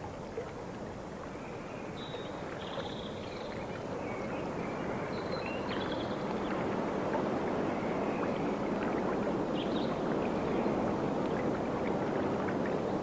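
Steady rushing water, slowly growing a little louder, with faint high chirps now and then.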